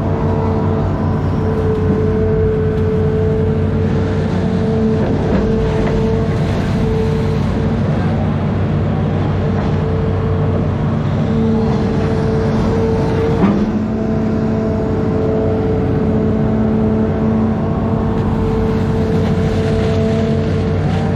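Amphibious excavator's diesel engine running steadily under load with a steady hydraulic whine, and one sharp knock partway through.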